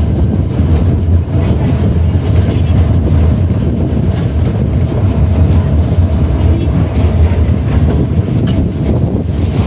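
Heritage PCC streetcar running along its rails, a steady loud rumble with wheel clicks over the rail joints and one sharper click near the end, heard from an open window with air buffeting the microphone.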